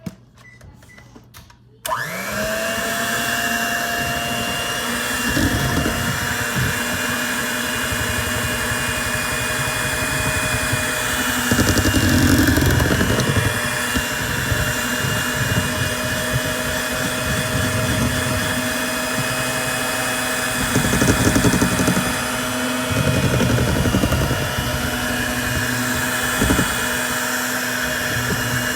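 Electric kitchen mixer switched on about two seconds in and running steadily, mixing cake batter, with a few louder spells as it works through the bowl.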